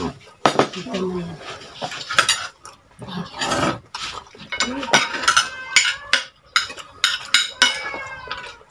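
Metal fork and spoon clinking and scraping against a plate while eating. There are many short, irregular clicks and taps throughout.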